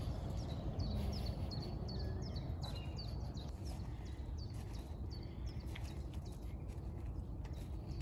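Small songbirds chirping: a run of short, high, downward-slurred chirps, several a second, over a steady low outdoor rumble.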